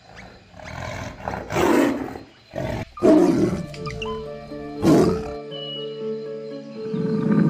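An animal giving a few rough, growling calls over background music. The strongest calls come in the first two seconds and around three seconds in, with a short one near five seconds, while held musical notes come in and grow louder toward the end.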